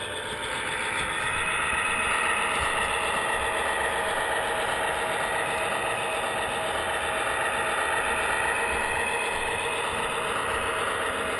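Model HO diesel locomotive's DCC sound decoder playing a diesel engine running, heard through its small speaker, a steady engine drone that swells slightly about a second in.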